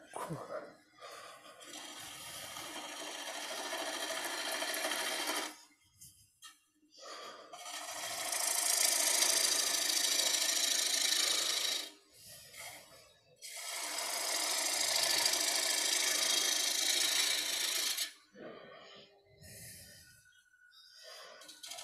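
A bowl gouge cutting a spinning blank of freshly harvested cedar on a wood lathe, a loud hissing cut in three passes of about four seconds each, with short pauses between as the tool comes off the wood.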